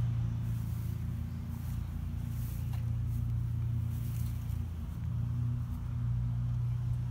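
A car engine idling, a steady low drone with small dips in level.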